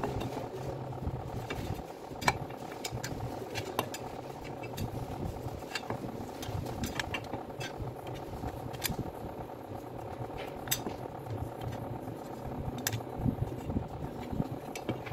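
Scattered light clicks and scrapes of a gloved hand working inside the empty aluminium gear housing of a demolition hammer, over a steady low background hum.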